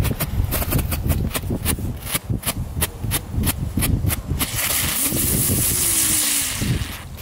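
Category 1 fireworks going off: a disco strobe popping in a quick even rhythm, about four pops a second, for some four seconds. It is followed by a ground bloom spinning with a steady hiss that stops shortly before the end.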